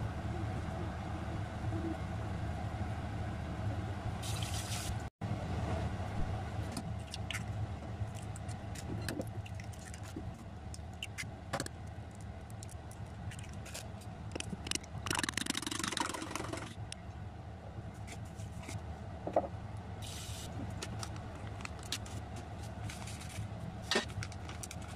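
Food preparation at a kitchen counter over a steady low hum: scattered small clicks and knocks as tomato pieces are handled, and an egg cracked against a stainless steel bowl about halfway through.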